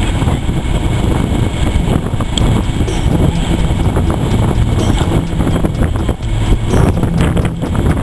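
Class 08 diesel shunting locomotive's engine running steadily as the locomotive creeps forward along the track, with wind noise on the microphone.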